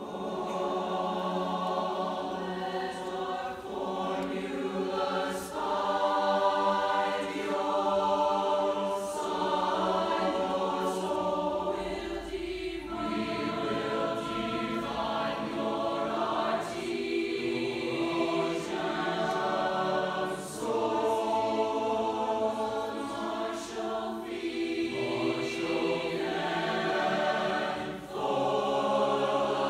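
Chamber choir singing in full harmony, held chords that change every couple of seconds; the singing starts out of near quiet at the very beginning.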